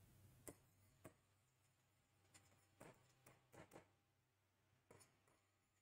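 Near silence: room tone with a low steady hum and a few faint, scattered ticks of a marker tapping and writing on a board.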